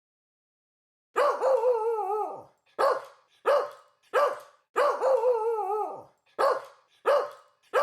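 A dog barking, starting about a second in: a long, drawn-out bark with a wavering pitch, then three short barks, then a second long wavering bark and three more short barks.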